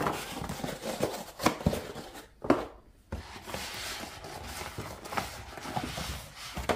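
Eggs being handled and set into a plastic rolling egg dispenser beside a cardboard egg carton: a few sharp knocks and clicks, the loudest about two and a half seconds in, then a steady rustling for the last few seconds.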